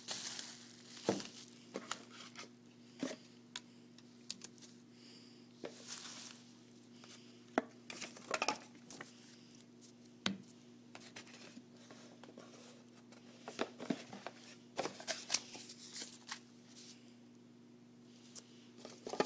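Plastic packaging crinkling and paper leaflets rustling as they are handled: scattered short crackles and rustles, over a faint steady low hum.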